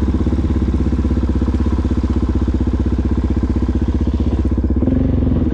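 Single-cylinder dirt-bike engine running steadily at low speed while riding, its firing pulses coming fast and even.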